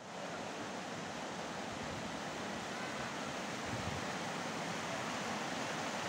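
Shallow rocky forest stream rushing over stones and small rapids: a steady, even rush of water.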